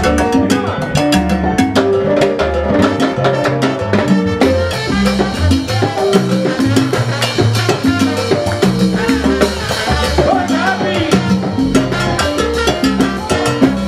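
Live salsa music from a Latin band: congas and timbales keep a dense, busy rhythm over a moving bass line.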